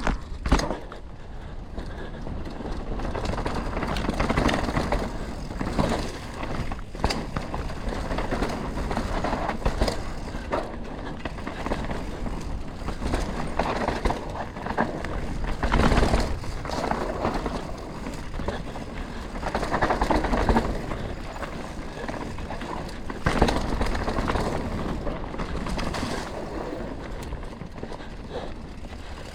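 Canyon Spectral 125 CF7 full-suspension mountain bike ridden along a dirt trail: tyres rolling over dirt and rocks, with frequent knocks and rattles from the chain and suspension. The noise swells several times as the ground gets rougher or the speed picks up.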